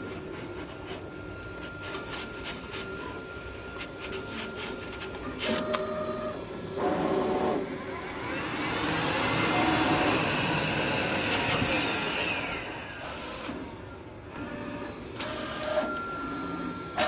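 SAGA ASC1907 decal cutting plotter at work, its motors driving the cutting head and feed rollers. Scattered clicks give way to short stepped tones, then a long whine that rises and falls in the middle.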